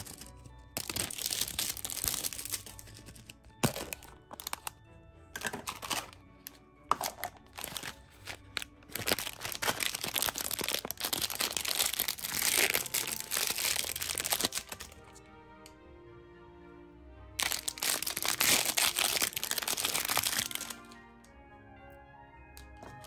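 Clear plastic candy wrapper crinkling and crackling as it is handled and peeled off a gummy candy, in several long stretches with short bursts between, over soft background music.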